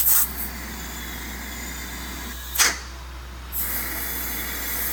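Two short hisses of compressed air, one right at the start and one about two and a half seconds later, each dropping quickly in pitch, over a steady low shop hum.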